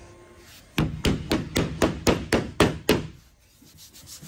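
A quick series of about nine knocks on a 3/4-inch MDF board, roughly four a second, as it is pounded down onto double-sided carpet tape on the CNC bed.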